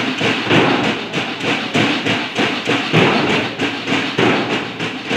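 Marching drums beating a steady cadence, about three strokes a second, keeping time for a marching column.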